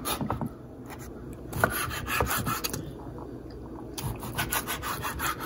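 Chef's knife slicing raw chicken breast into strips on a wooden cutting board: the blade sawing back and forth through the meat and scraping and tapping on the wood in a run of short strokes, busiest about four seconds in.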